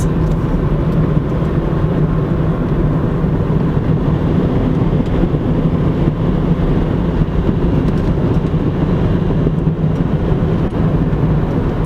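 Car driving along a highway at a steady speed: a constant hum of engine and tyre noise with an even rushing underneath.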